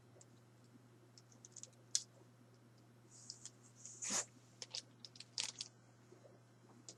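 Faint clicks and light plastic knocks from action figures being handled, with a brief rustle a little after three seconds and a louder knock just after four seconds.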